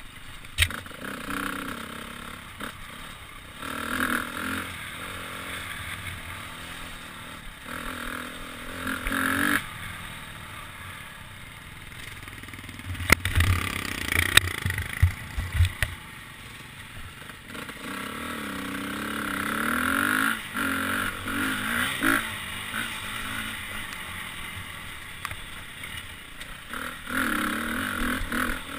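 Dirt bike engine revving up and down over and over as it rides a rocky trail, with a run of sharp knocks and clatter about halfway through as the bike hits rocks.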